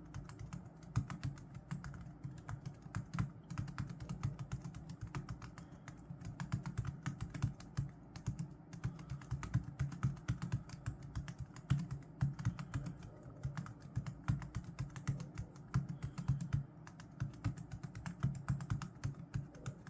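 Computer keyboard being typed on fast and without pause, a dense, uneven run of key clicks with a dull low thud under each stroke.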